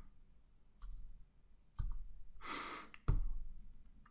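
A few separate keystrokes on a computer keyboard, three sharp clicks about a second apart, the last the loudest, with a breath out near the microphone a little after two seconds in.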